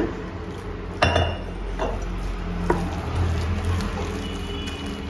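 Metal spoon stirring thick besan-and-onion pakora batter in a glass bowl, clinking sharply against the glass three times, about a second apart.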